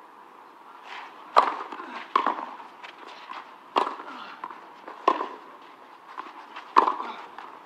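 Tennis ball struck by rackets in a serve and rally: a series of sharp pops, about five clear strikes one to two seconds apart, with fainter ticks between.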